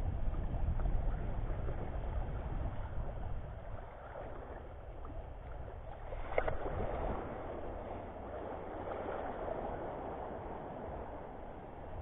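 Shallow seawater sloshing and lapping, with a low rumble through the first few seconds and a single knock about six seconds in.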